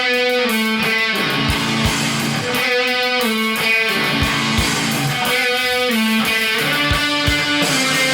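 Guitar-led rock music with no singing: a repeating riff of pitched notes over a low thudding beat.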